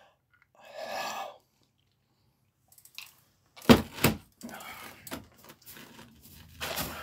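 A heavy glass pitcher of iced coffee is set down onto a bed of loose ice cubes, making a loud double knock and a crunch of ice about four seconds in. Ice cubes then rattle and shift around it. A short rushing sound comes about a second in.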